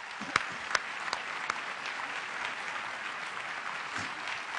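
Audience applauding: a dense, steady patter of many hands clapping, with a few louder single claps standing out in the first second and a half.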